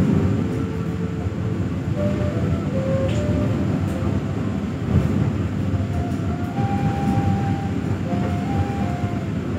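Passenger train running along the track, heard from inside the coach: a steady rumble of wheels and carriage, with a louder knock about halfway through.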